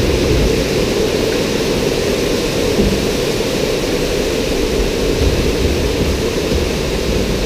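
Log flume water rushing steadily along the ride's trough, a loud even rushing noise with a low rumble under it.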